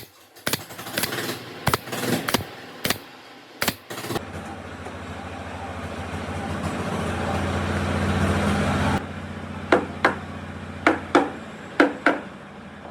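Workshop work sounds. A series of sharp knocks or taps is followed by a small electric power tool that runs for about five seconds, grows louder and stops abruptly, and then about six more sharp knocks.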